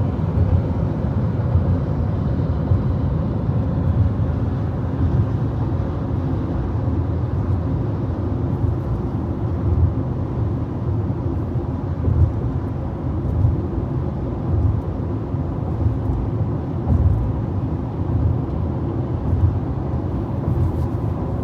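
Steady road noise inside a moving car's cabin: an even, low rumble of tyres and engine while driving.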